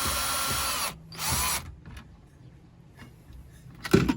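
Cordless drill-driver unscrewing the bolts of a washing machine's drain motor: a steady run that stops about a second in, then a short second burst. A few sharp knocks near the end.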